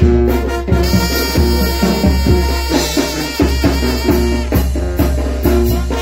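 Band music playing a chilena: a brass lead, trumpet by the look of it, carries the melody over drums and a strong bass pulse on a regular beat.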